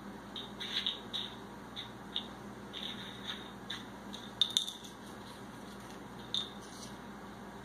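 A bottle cap clicking and skittering on a tiled floor as a cat bats it about with its paws: about a dozen light, irregular clicks, the sharpest pair about four and a half seconds in.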